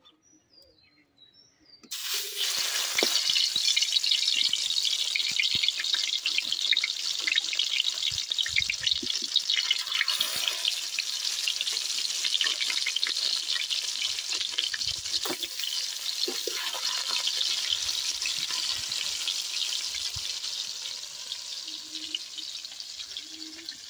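Shol (snakehead) fish steaks hitting hot mustard oil in an iron kadai: a sudden loud sizzle with crackling about two seconds in, which keeps frying steadily and dies down a little near the end.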